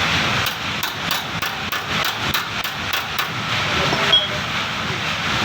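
Steady hiss of a gas welding torch flame. Over it comes a run of about ten sharp metallic taps, about three a second, over the first three seconds, and a brief high chirp about four seconds in.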